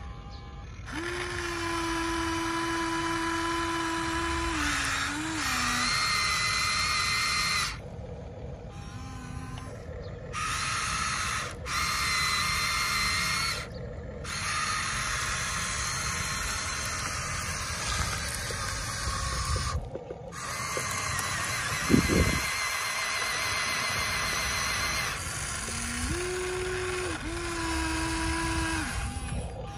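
Huina RC excavator's electric motors and gearboxes whining in spurts as the arm, boom and bucket move, starting and stopping and stepping in pitch between moves. A single sharp knock about two-thirds of the way through.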